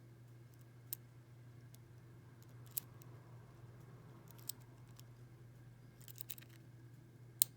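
Small, sharp metallic clicks of a lock pick working the pins inside a six-pin First Watch padlock: a few scattered clicks, a quick cluster near the end, then the loudest single click as a rear pin sets. A faint steady hum underlies it.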